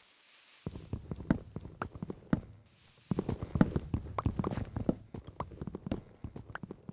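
A rapid, irregular clatter of knocks and thuds that starts under a second in, eases briefly midway, then comes back louder.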